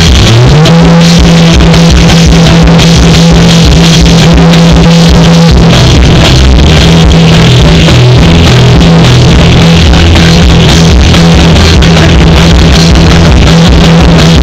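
Live band playing loudly through amplifiers: drum kit with cymbals, electric guitar, bass guitar and a male singer at a microphone. A low note is held steadily for several seconds near the start.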